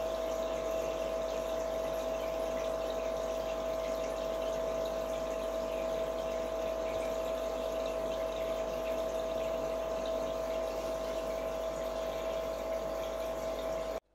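Aquarium pump humming steadily, a constant mid-pitched tone over a hiss of moving water; it cuts off abruptly near the end.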